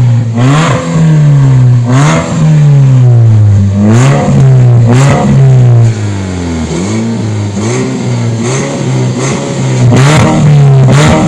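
Renault Fluence 2.0 four-cylinder petrol engine revved in quick throttle blips, about eight times, each rev rising and falling sharply, with its electric exhaust cutout open so the exhaust bypasses the mufflers and gives a strong, sporty note.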